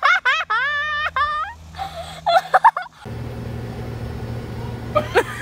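A high-pitched voice letting out a quick string of short cries that slide upward in pitch, with a few more cries a second later. About three seconds in it cuts off abruptly and a steady low hum takes over.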